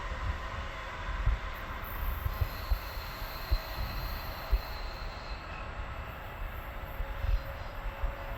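Passenger train running by on a curve: steady rail and wheel noise with occasional knocks, and a thin high wheel squeal for a few seconds in the middle.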